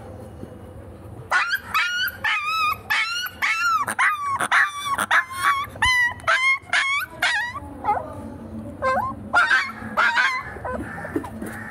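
A puppy barking in a fast run of high-pitched yaps, about three a second, starting a little over a second in, then a few scattered yips near the end.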